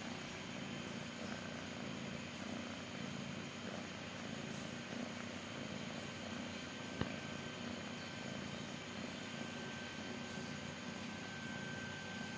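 Domestic cat purring steadily, with a single short click about seven seconds in.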